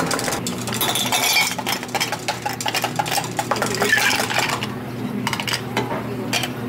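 Long metal spoon stirring and clinking against a glass mug, then ice cubes scooped with a metal scoop and clattering into glass mugs.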